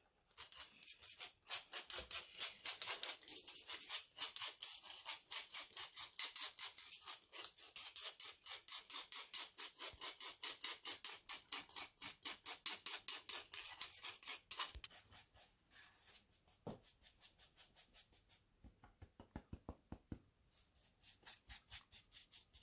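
A fine-mesh metal sieve tapped and jiggled in a quick, even rhythm, sifting powdered sugar with a light scratchy rasp. The strokes get fainter and sparser about fifteen seconds in.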